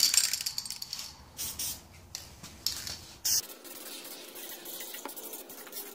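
Aerosol spray paint can spraying: several short hissing bursts, then a fainter, steadier hiss from about three and a half seconds in.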